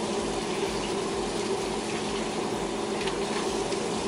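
Cajun boil broth boiling in a wok on a gas burner, a steady bubbling wash of sound with a low hum underneath.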